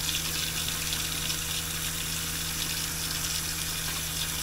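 Water running steadily from a pull-down kitchen faucet into a stainless steel sink, splashing over a hand held under the stream, with a steady low hum underneath.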